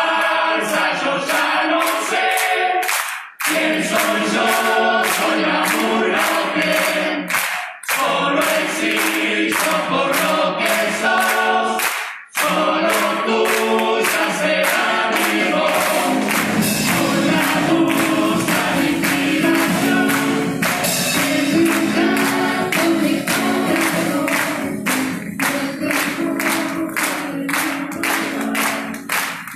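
Uruguayan murga chorus singing in many-voiced harmony over a steady percussion beat, the music breaking off for a moment three times in the first half.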